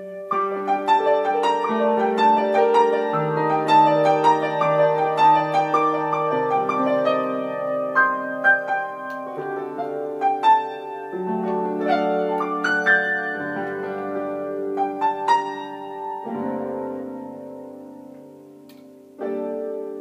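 Electronic keyboard played with a piano sound: held chords with a moving bass line under a flowing stream of quicker notes on top. It grows softer in the last few seconds, then a new chord is struck just before the end.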